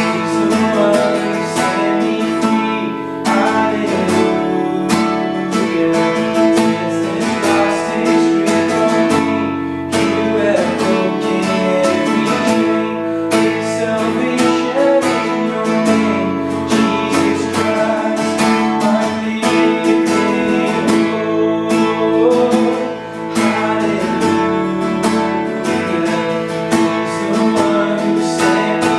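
Acoustic guitar strummed in a steady rhythm, playing a worship song.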